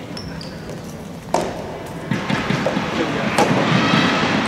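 Soft tennis rackets striking a rubber ball in a rally, two sharp pops about two seconds apart that ring in the hall, with a short shoe squeak on the wooden floor near the start. From about halfway, voices in the hall grow louder.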